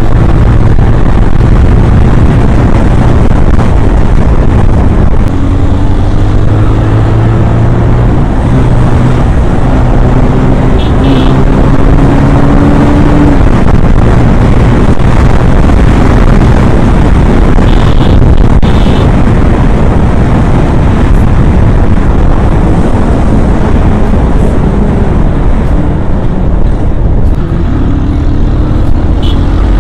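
Bajaj Pulsar 180's single-cylinder engine running under way, its note climbing in pitch several times as the bike accelerates, under heavy wind and road rush.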